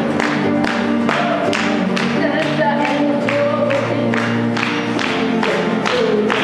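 Live folk-pop song: a woman singing over electronic keyboard chords and an acoustic guitar, with a steady beat about twice a second.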